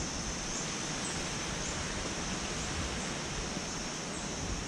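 Cloud-forest trail ambience: a steady broad hiss, with a steady high-pitched hum over it and faint high chirps about once a second.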